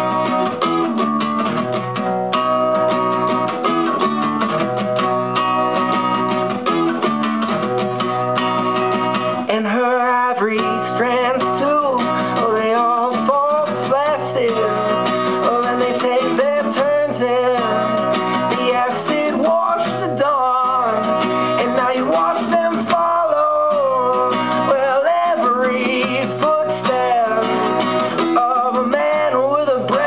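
Acoustic guitar strummed steadily, with a man singing along over much of it.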